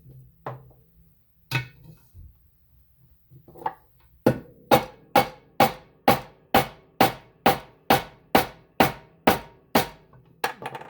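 Hammer blows driving a stubborn handle rivet out of a frying pan propped on a socket, each strike ringing metallically. A few spaced blows, then steady hammering at about two strikes a second from about four seconds in.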